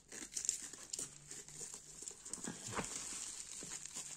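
Trading cards and their packaging being handled: scattered light taps and clicks with soft rustling as a box of cards is shifted and opened.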